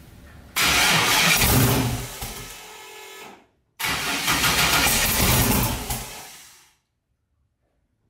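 LS V8 cranked over on its starter twice, with a brief pause between, running on a near-stock Microsquirt tune. The engine turns at about 100 rpm but does not catch, and the second crank fades out.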